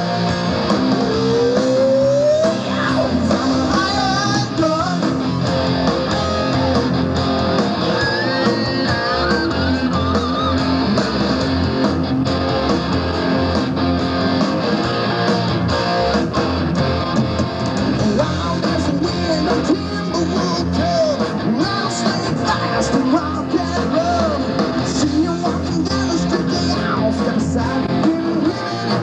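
Rock band playing live: distorted electric guitars, bass guitar and drums amplified through a PA, with sliding guitar lead lines over a steady beat.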